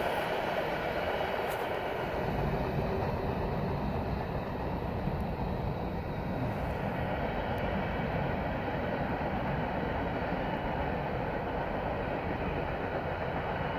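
Steady rolling rumble of the last cars of a long mixed freight train moving away along the track, with no distinct clicks.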